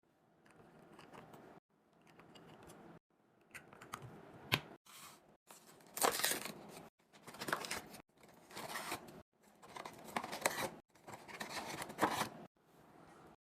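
Plastic packaging being cut and torn open during a mini fridge restock, heard as short crinkling, scraping stretches with sharp clicks. Each stretch lasts about a second and is chopped off abruptly by an edit, about nine in all.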